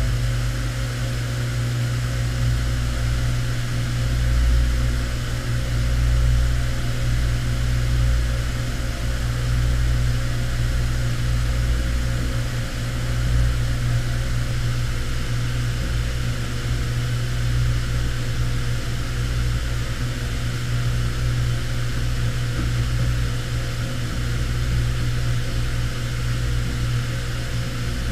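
CNC vertical machining centre milling a plate under flood coolant: a steady low machine hum with a fainter hiss of coolant spray, unchanging throughout.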